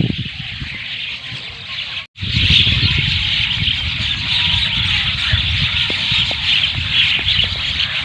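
A flock of common mynas chattering on the ground, a dense, unbroken mass of overlapping calls, with a low rumble beneath. The sound cuts out for a split second about two seconds in.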